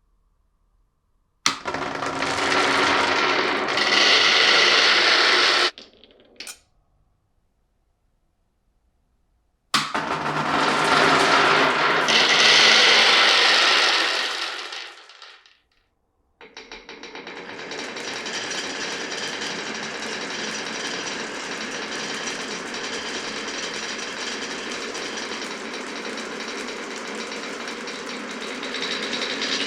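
Marbles rolling and rattling along a wooden marble run: two loud runs of about four seconds each that start suddenly and stop abruptly, then from about two-thirds of the way in a long steady rolling rattle.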